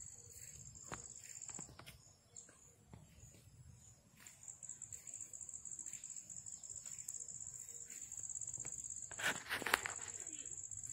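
Insects trilling steadily at a high pitch, with a couple of short breaks in the song. A brief rustling burst about nine seconds in is the loudest sound.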